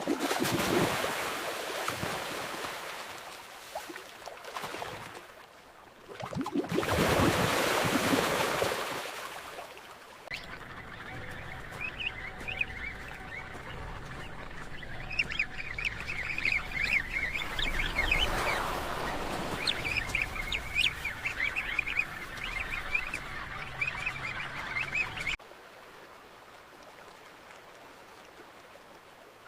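Two rushing swells of water noise, then from about ten seconds in a penguin colony calling in many short honking squawks over a low rumble of water, for about fifteen seconds. The calls stop suddenly, leaving a faint steady hiss of wind and sea.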